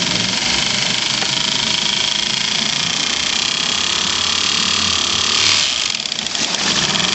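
Honda four-stroke outboard engine running in a test drum with a knock, which the owner thinks is a worn connecting rod; bearing babbitt has turned up in the oil. A brief louder swell comes about five and a half seconds in, then the sound turns rougher and more uneven.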